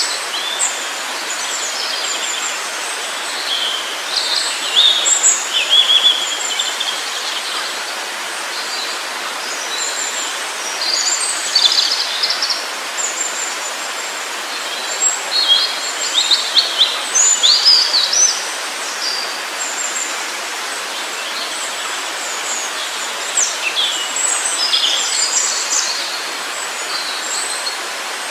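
Forest birds chirping and trilling in several flurries, with quieter gaps between them, over a steady rush of running water.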